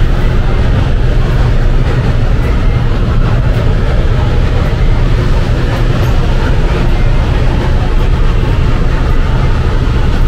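Steady, loud low rumble of a spray paint booth's ventilation airflow and fans running.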